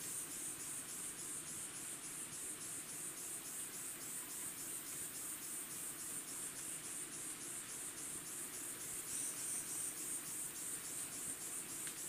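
Insects chirping in a steady high-pitched pulse, about four chirps a second.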